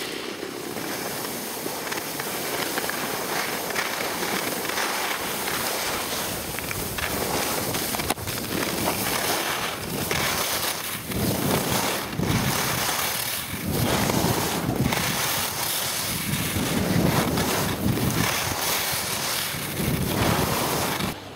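Wind rushing over the microphone of a camera carried by a downhill skier, with the hiss and scrape of skis on snow. The noise swells in uneven surges that grow louder about halfway through.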